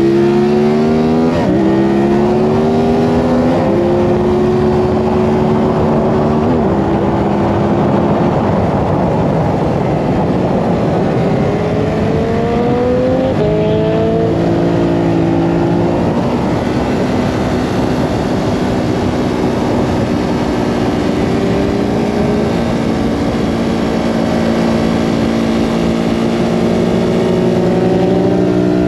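Ducati Hypermotard 939's L-twin engine heard from onboard at speed, revving and changing gear: its pitch climbs, drops at a shift, holds, then climbs again. A heavy rush of wind noise runs under it.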